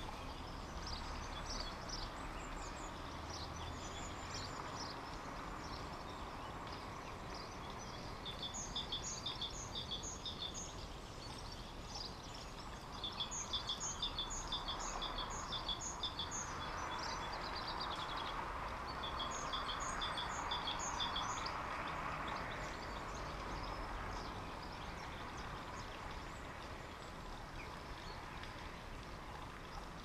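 Small garden birds chirping in three quick runs of repeated high notes, over a soft steady outdoor hiss.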